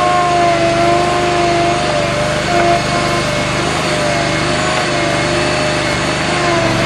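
Avant compact loader's engine running steadily while it works a backhoe digger attachment in soil, with a whine over it that wavers slightly in pitch as the digger moves.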